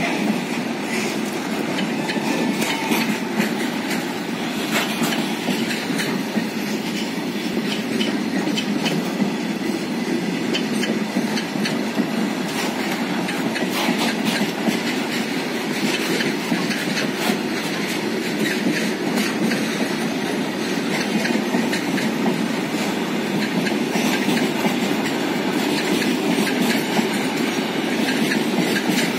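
Freight train of loaded flat wagons rolling past at close range: steady rumble of steel wheels on rails, with a continual clickety-clack of wheels crossing rail joints.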